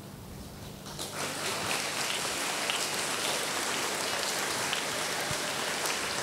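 A large seated audience applauding: many hands clapping together, starting about a second in and then holding steady.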